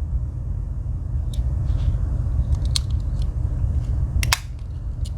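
A Victorinox Cyber Tool 34 Swiss Army knife being handled: sparse light metal clicks of its tools moving, with a sharper double click about four seconds in, over a steady low hum.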